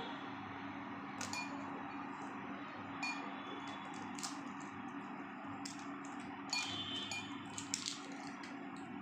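A handful of light clinks of kitchenware against a bowl, spaced a second or two apart, over a steady low hum.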